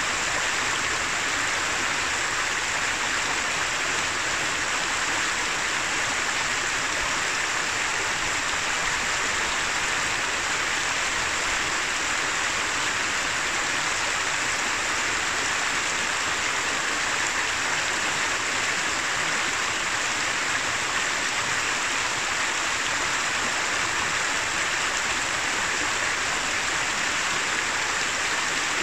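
Shallow rocky mountain river flowing over stones, a steady, even babble and rush of water.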